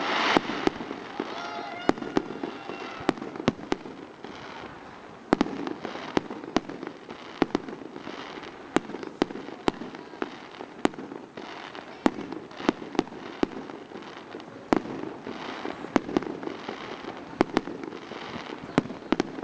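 Fireworks display: aerial shells bursting in many sharp bangs at irregular intervals, at times several a second, over a continuous background noise.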